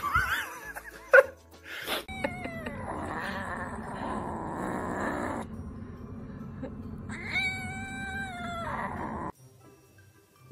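A cat yowling in long drawn-out cries over a steady rough growl while it chews on something. The last yowl comes near the end, and the sound cuts off suddenly. Short cat cries come at the very start.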